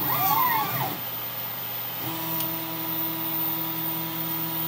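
Delta 3D printer's stepper motors, on DRV8825 drivers at 1/32 microstepping, whine in rising and falling sweeps as the effector moves, stopping about a second in. From about two seconds in a steady pitched hum takes over.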